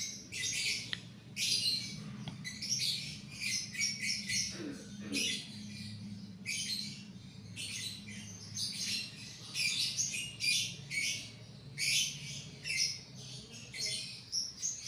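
Paintbrush bristles scrubbing dust off a Toshiba Satellite L840 laptop's CPU fan and motherboard: quick, irregular scratchy strokes, over a steady low hum.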